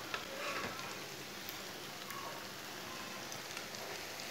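Hot oil sizzling steadily around grated raw-potato patties shallow-frying in a pan. A light metal click sounds just after the start as the patties are turned.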